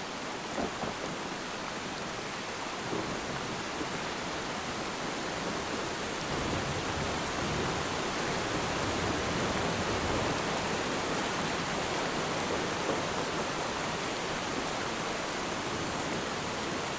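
Steady rain falling on water, with a low rumble of distant thunder swelling up about six seconds in and easing off a few seconds later.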